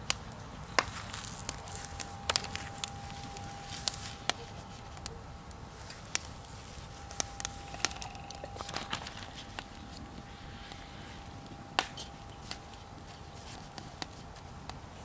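Wood fire crackling under a cast-iron kazan: irregular sharp pops and clicks, a few louder ones standing out, over a faint steady high tone.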